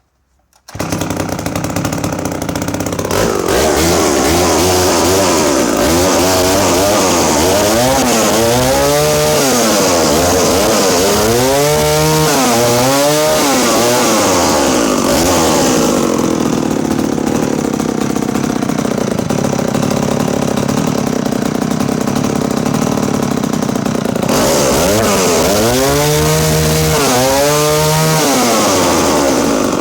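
Danarm 125 Mk II vintage two-stroke chainsaw engine running; the sound begins abruptly about a second in. The throttle is blipped so the revs rise and fall in pairs, twice in the first half and once more near the end, with a steadier lower idle in between.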